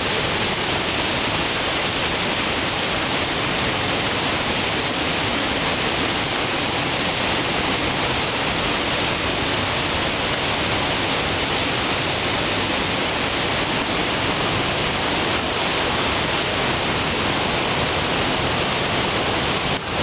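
Waterfall thundering: a dense, steady rush of falling water with no change throughout.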